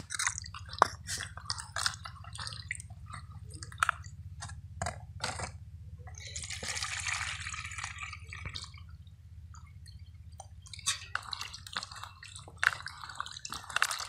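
Hands swishing and rubbing cut giant taro (mann kochu) pieces in water in a plastic basin, with splashes and knocks of the pieces against each other. About six seconds in, the water is poured out of the basin for a couple of seconds, and then the sloshing and splashing start again.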